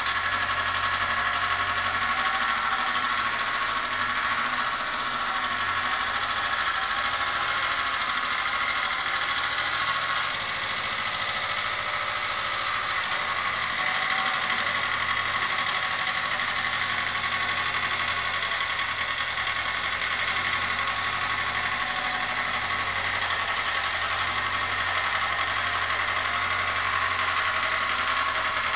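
Satoh Beaver S370 compact tractor's engine running steadily as it pushes snow with its front plow blade, the low note rising and falling slightly as it works.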